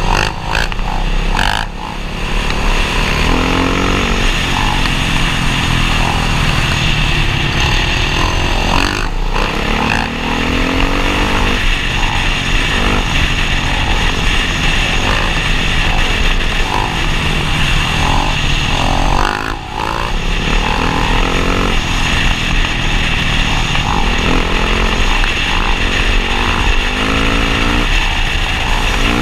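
Motocross dirt bike engine revving up and down again and again, with a few short dips in level between runs.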